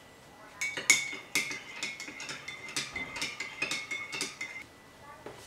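Metal teaspoon stirring in a porcelain mug, clinking against the sides about three times a second with a ringing tone, then stopping about four and a half seconds in.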